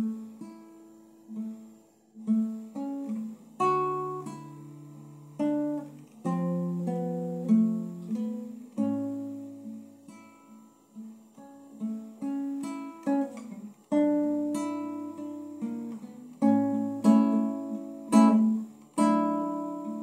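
Classical guitar played solo without voice: fingerpicked chords over bass notes, each ringing and fading, with a few brushed strums.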